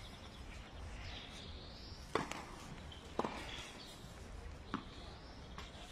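Small plastic Subbuteo figures flicked against the ball on the table: three sharp clicks, the loudest a couple of seconds in, another a second later and a fainter one near the end.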